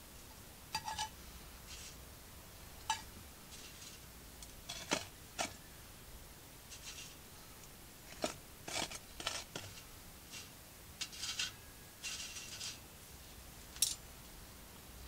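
Metal tongs picking up lit charcoal briquettes and setting them into stainless steel and aluminium mess-tin lids: irregular metallic clinks and scrapes, some ringing briefly, as the coals are loaded onto the lids to give top heat for baking in the mess tins.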